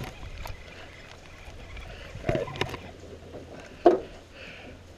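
Knocks and bumps on a small rowboat while a hooked bass is played alongside: two close together a little past two seconds and a sharper, louder one near four seconds, over a steady low rumble.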